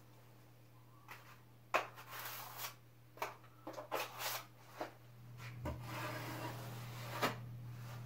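Metal drywall knife scraping and knocking against a mud pan while it is loaded with joint compound: a run of sharp scrapes and clicks, then a longer rasping scrape ending in a click near the end, over a steady low hum.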